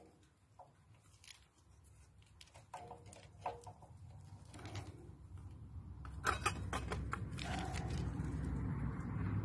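Light metallic clicks as the fuel-pump control linkage of a Lister SR3 three-cylinder diesel is handled. Then, about halfway through, the engine's low rumble builds up and holds steady.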